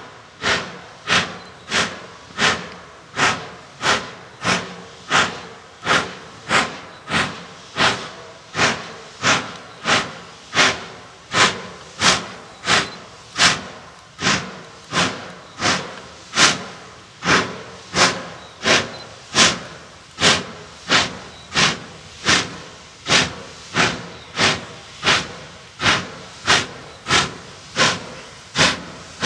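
Saddle-tank steam locomotive working a train of wagons, its exhaust chuffing in a steady, even rhythm of about three beats every two seconds.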